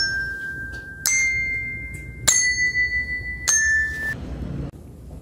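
Four touch bells struck one after another, about a second and a quarter apart, each ringing on at a different pitch. Together they form the sequence whose order is to be guessed by ear.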